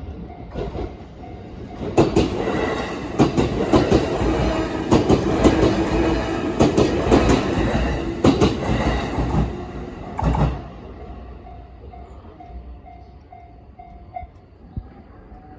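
A train passes through a Japanese level crossing, loud for about eight seconds, with repeated clacks of its wheels over the rail joints. The crossing's warning bell dings steadily and is heard clearly again once the train has gone by.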